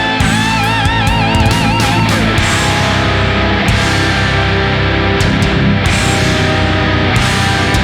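Heavy rock music with electric guitar. A held lead note wavers with wide vibrato for the first two seconds, then gives way to a dense, driving band texture.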